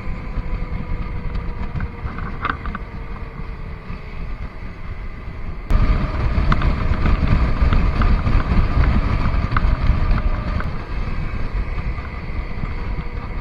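Motorcycle on the move: wind rushing over the action camera's microphone on top of the steady engine and road hum, getting suddenly louder about six seconds in.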